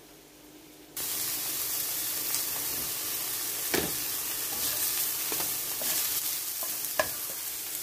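Wild mushrooms frying in a pan: a steady sizzle that starts abruptly about a second in, with a couple of short clicks.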